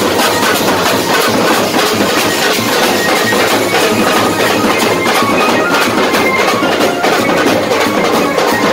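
A street drum band pounds out a fast, dense, loud beat on large bass drums and small drums beaten with sticks.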